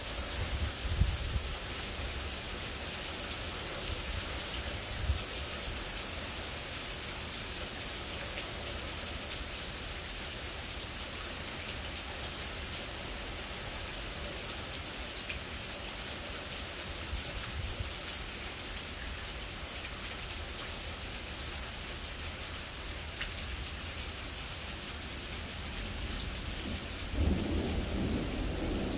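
Steady rain falling in a thunderstorm, with low rumbles of thunder near the start and a stronger thunder rumble building near the end.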